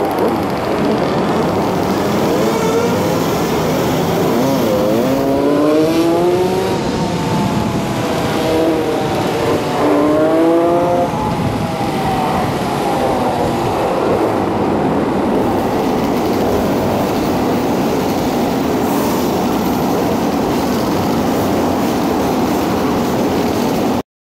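A pack of motor scooters riding, heard from a rider's helmet camera and played at double speed. Steady wind and road noise runs throughout, and engine pitch rises and falls in quick revs a few times. The sound cuts off abruptly near the end.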